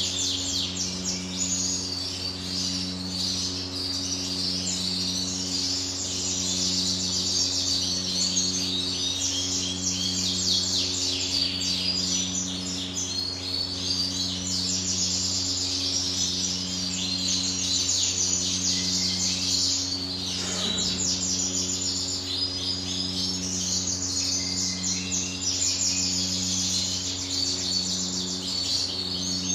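Many small caged songbirds chirping and singing at once, a dense, unbroken chatter, over a steady low electrical hum that pulses about once a second. A single sharp click about two-thirds of the way through.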